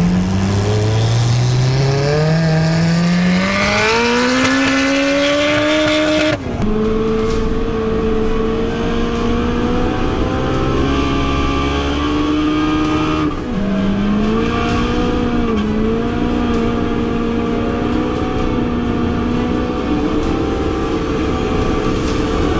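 Turbocharged Honda K20 2.0-litre four-cylinder engine of a land speed CRX at full throttle, heard from inside the car: the pitch climbs for about six seconds, drops suddenly at an upshift, then holds steady at cruising speed, with one brief dip and recovery just after halfway.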